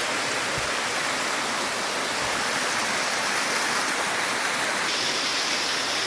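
Waterfall rushing, a loud, steady roar of falling water that turns a little brighter and hissier about five seconds in.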